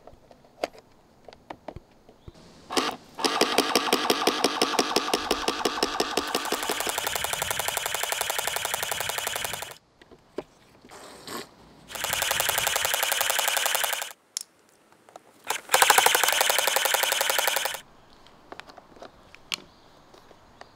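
Electric water gun firing automatically, its pump pulsing in fast, even rattling bursts. There is one long burst of about seven seconds, then two shorter bursts of about two seconds each, with a few light clicks in between.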